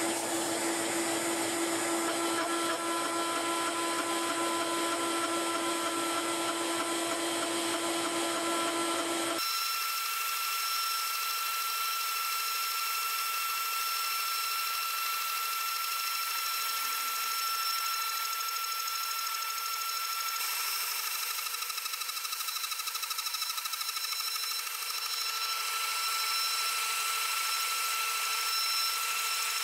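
CNC spindle running at high speed, a single-flute carbide endmill milling an aluminium (5083) block in a trochoidal toolpath: a steady whine with cutting noise. About nine seconds in, the low rumble under it drops out suddenly while the whine carries on.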